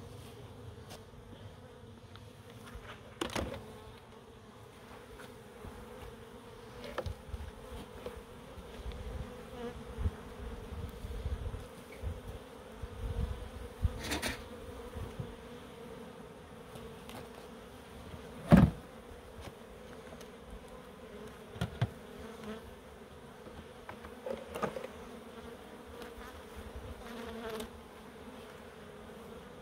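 Honeybees buzzing steadily around an open hive, a constant hum, with a scatter of short knocks and clicks. The loudest knock comes about two-thirds of the way in.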